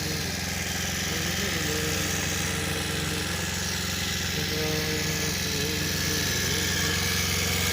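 Motorcycle engine idling with a steady low hum.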